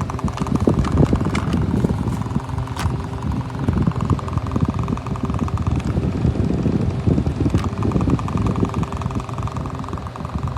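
Twin-blade window fan running: a steady motor hum with an uneven rumble of air buffeting the microphone.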